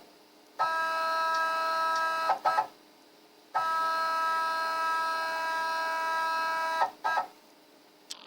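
CNC router's stepper-driven axis whining at a steady pitch as it travels in a probing move to find the centre of a hole, twice, each run ending in two short blips of the same whine.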